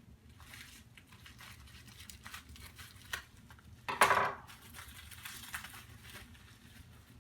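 Hands handling Mac Pro memory parts (RAM sticks and riser card): light rustling and small clicks, with one louder clack about four seconds in.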